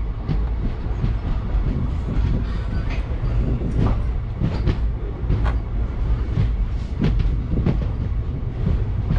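Passenger train coach rolling into a terminus station, heard from the coach doorway: a steady low rumble with the wheels knocking over rail joints at irregular intervals.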